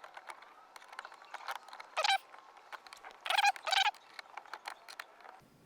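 A 10 mm wrench tightening a screen-bracket bolt, with a run of light irregular clicks. Over it come four short, high-pitched cries with a bending pitch.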